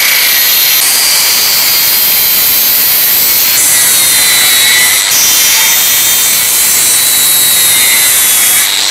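Electric angle grinder running at speed, its disc cutting through the aluminium fins and tubing of a cooling coil: a continuous, high-pitched grinding whine whose pitch shifts slightly as the disc bites in.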